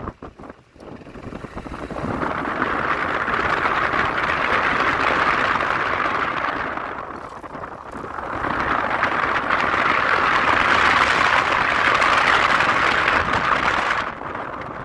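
Wind rushing over a phone microphone on a moving motor scooter, with the scooter's running underneath. The rush swells twice, with a lull about seven seconds in.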